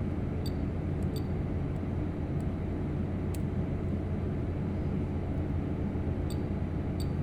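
Steady low background hum or rumble with a few faint, sharp ticks scattered through it.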